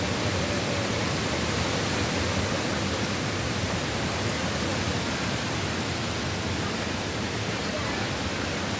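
Hurricane wind and rain, a steady rushing noise.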